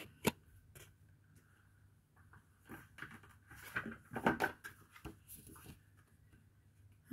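Oracle cards and paper handled on a table: a sharp tap just after the start, then scattered soft clicks and rustles, busiest in the middle, as a card is laid down face up.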